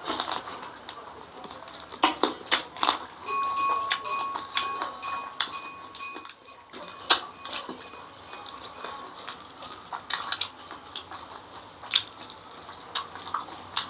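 Close-miked eating sounds: wet smacking, sucking and chewing on a chicken head and neck, with irregular sharp mouth clicks.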